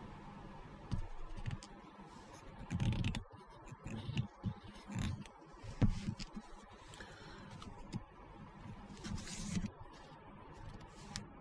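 Small handling noises on a cutting mat: light, irregular clicks, taps and scrapes as tiny plastic model parts and a plastic glue bottle are handled and set down.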